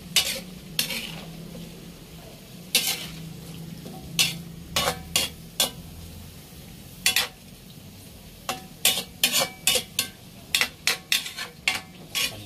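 A metal utensil stirring vegetables and chicken pieces in a metal wok, scraping and knocking against the pan in irregular clinks that come faster in the second half. A faint hiss of the broth simmering runs underneath.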